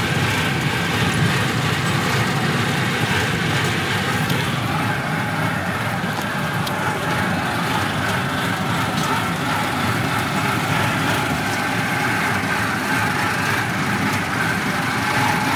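Small ride train running steadily along its track: even engine and wheel noise with no pauses.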